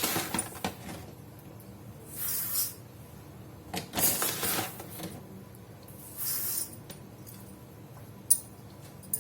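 Raw idli rice poured from a glass into a vessel, a dry rustle of grains in about four short pours, with a couple of light clicks near the end.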